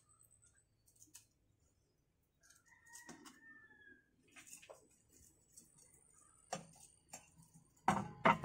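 A rooster crows once, a single held call about three seconds in, over small clicks and rustles of potting soil being pressed down. Near the end come a few sharp knocks, a plastic garden trowel being picked up off the table.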